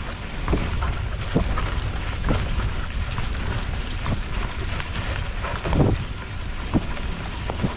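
Mountain bike rolling over bumpy grass and dirt: a steady low rumble with knocks and rattles about once a second.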